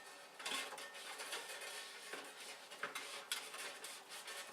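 Rubbing and scrubbing on an old metal-and-glass light fixture being cleaned with WD-40, with scattered light clinks and knocks of metal and glass.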